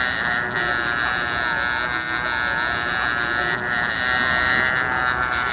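A sea lion calling with its mouth wide open: one long, loud, buzzy call with only brief dips.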